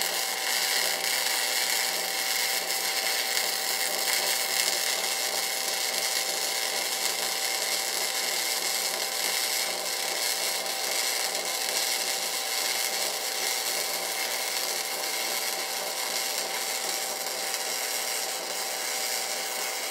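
Electric arc welding on a steel barrel smoker: one long, unbroken bead with the arc's steady crackling hiss, which stops near the end.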